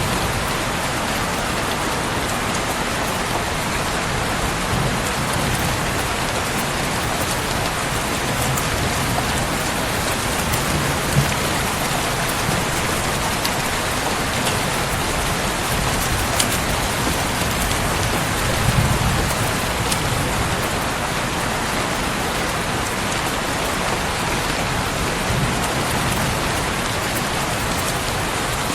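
Steady, dense rain falling on a surface, with a few sharp ticks standing out now and then.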